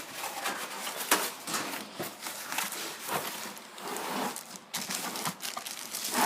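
Plastic packaging crinkling and rustling in irregular bursts as it is handled and pulled open.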